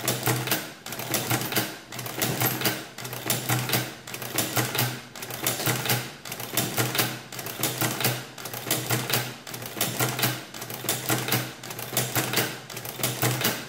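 Victor manual adding machine cranked over and over by its hand lever, each pull a burst of ratcheting metal clatter, about every two seconds. The repeat key is latched down, so each pull adds again, and the freshly freed mechanism is cycling.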